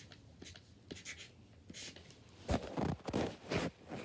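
Paint marker scratching on a surface in a few short strokes, beginning about halfway through after a faint start.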